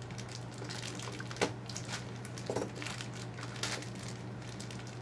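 Plastic packaging crinkling, with scattered small clicks of plastic parts being handled as Beyblade parts are taken out of their packaging. The sharpest click comes about a second and a half in.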